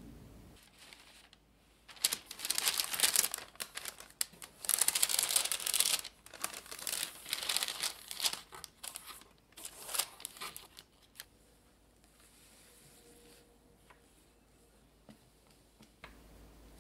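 Baking parchment crinkling in irregular bursts as it is pressed and creased into a metal sheet pan, dying away in the last few seconds.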